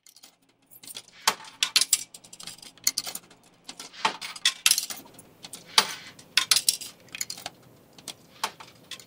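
A fast, irregular run of sharp metallic clinks and jingles, thinning out near the end.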